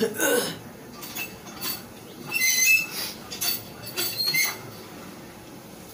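Whiteboard being wiped with an eraser: a series of quick rubbing strokes with high squeaks, stopping about four and a half seconds in.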